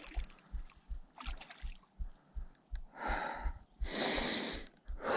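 An angler breathing hard while fighting a hooked trout on a spinning rod: three loud gasping breaths in the second half, over a steady rapid low knocking, about four a second, from the spinning reel being cranked.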